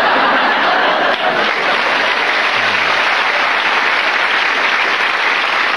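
A large studio audience applauding steadily.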